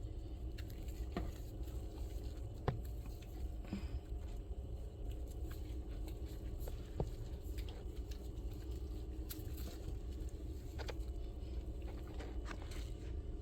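Small splashes and drips of bath water as a cat is soaped and rubbed in a tub, scattered light ticks over a steady low hum.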